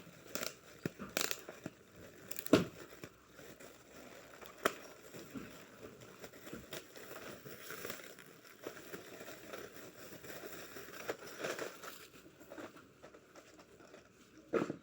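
Plastic packaging crinkling and rustling as it is handled, with scattered sharp clicks and taps; the loudest click comes about two and a half seconds in.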